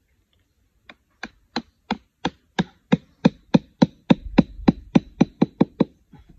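A small hatchet's head knocking a wooden peg into the ground: about nineteen sharp knocks, starting about a second in at roughly three a second and quickening to about four a second toward the end.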